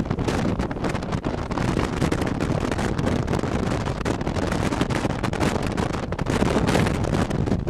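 Strong wind blowing straight across the camera microphone, loud and rumbling, rising and falling in gusts.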